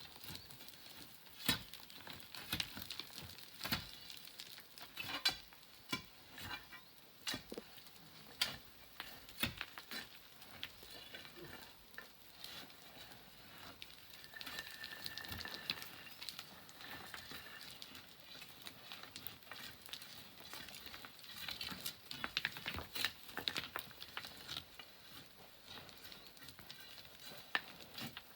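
Sand and small pebbles trickling and clattering down as they are dug loose: a dense, irregular crackle of small clicks, with a louder pebble strike every second or two.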